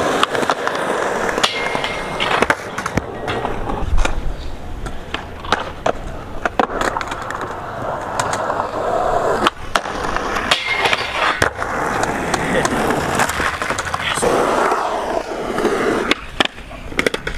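Skateboard wheels rolling over concrete, with many sharp clacks of the board popping and landing.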